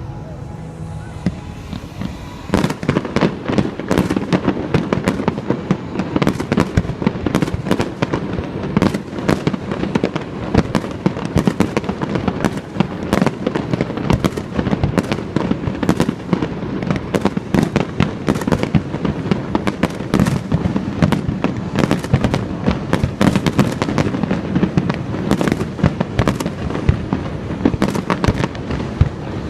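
Fireworks display going off in a dense, rapid barrage of bangs and crackles, starting suddenly about two and a half seconds in and continuing without a break.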